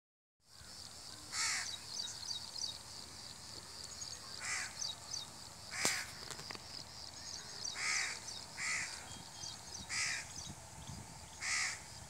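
Crows cawing: about seven short, harsh calls spaced a second or two apart, over faint high chirping. One sharp click about six seconds in.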